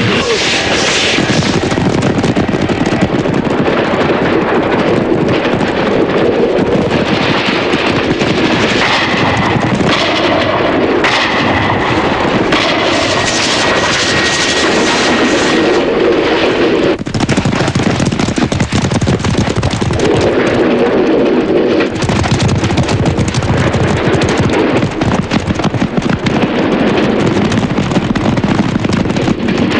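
Action-movie sound effects: dense, continuous rapid gunfire mixed with the hooves of galloping horses.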